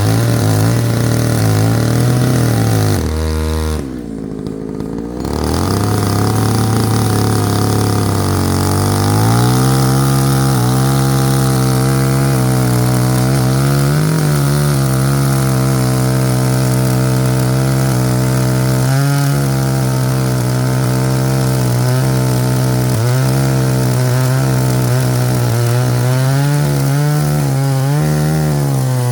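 A two-stroke chainsaw running hard while cutting firewood, easing off briefly about four seconds in, then back at a steady high drone under load for the rest of the time.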